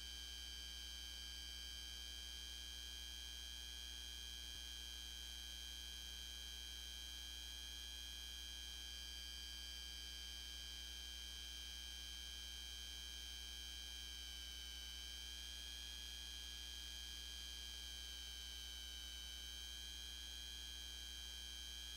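Steady electrical hum with several thin high-pitched whining tones that waver slightly past the middle. There is no parade sound, only the noise floor of a silent film transfer.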